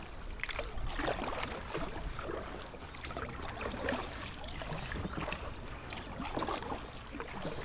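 Water splashing and sloshing against an inflatable kayak as it is paddled, with irregular soft swishes every second or so over a low rumble of wind on the microphone.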